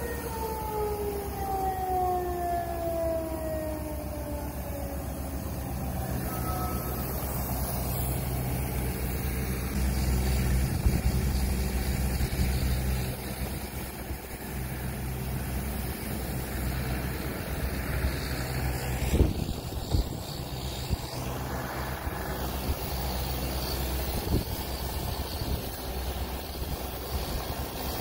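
A siren winding down, its pitch falling steadily over the first few seconds and fading out. After it comes a steady low rumble with a few sharp knocks.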